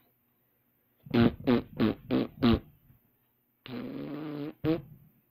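Comic mouth noises made by a person: after a second of silence, five short pitched blasts about three a second, then a longer buzzing one and a last short blast near the end.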